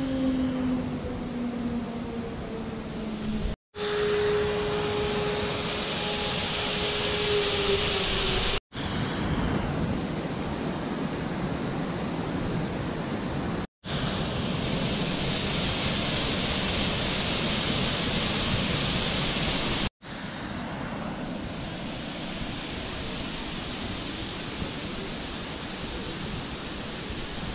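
Steady rush of a waterfall and cascading mountain stream, cut into several short stretches by brief dropouts. Through the first two stretches a low hum slowly falls in pitch.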